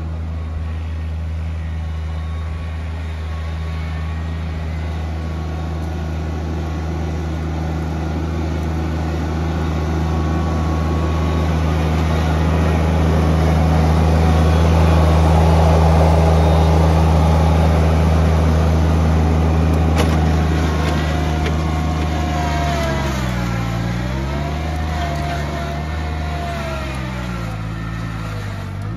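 John Deere 2305 subcompact tractor's three-cylinder diesel engine working under heavy load while pulling a single 14-inch moldboard plow, growing louder as it passes close about halfway through. Near the end its pitch sags and recovers twice as the plow bogs the engine down.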